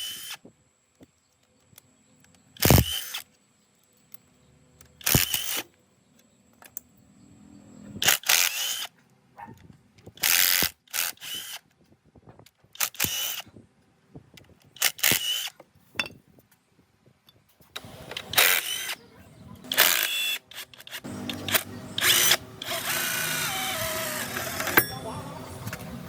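A power tool run in short bursts, about ten times, each burst under a second, then running steadily for a few seconds near the end.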